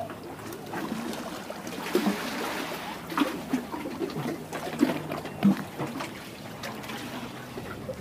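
Calm sea water lapping and trickling among rocks at the shore, with scattered small clicks and a faint steady low hum through the middle.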